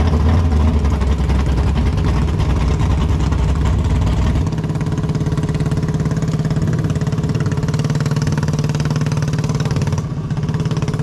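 A vehicle engine running at a steady speed: a deep rumble that eases about four seconds in, then a steady drone.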